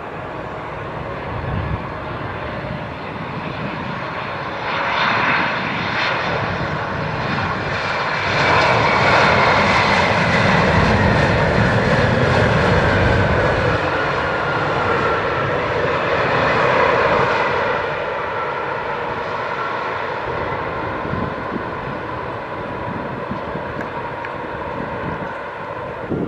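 Jet airliner's engines passing close by. The sound swells to its loudest in the middle, and a whine falls steadily in pitch as the aircraft goes past, then eases off.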